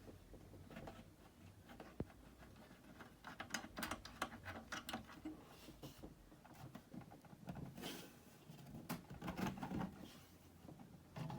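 Hands handling small hardware and packaging on a desk: scattered light clicks, taps and short rustles, busiest in the middle and again near the end.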